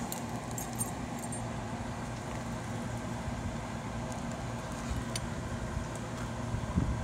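A steady low machine hum, with light metallic jangling and clicks from a metal link bracelet in the first second and a half as a hand works under the engine.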